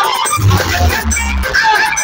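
Electronic dance music played loud through a large DJ sound box of stacked horn and bass speakers. Heavy deep bass hits come in for about a second in the middle, under a high melody line.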